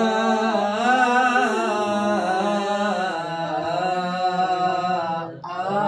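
A man's voice chanting Qur'anic recitation in the Sikah maqam, drawing out long ornamented notes that waver in pitch. A short break for breath near the end, then the next phrase begins.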